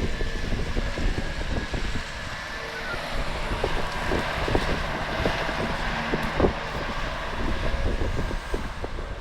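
Heavy diesel earthmoving machinery running, with scattered knocks and wind buffeting the microphone.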